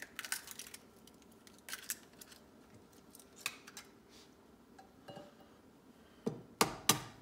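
Eggs being cracked by hand over a skillet: small scattered clicks and crackles of eggshell, then a few sharp knocks a little after six seconds as the next egg is rapped to crack it.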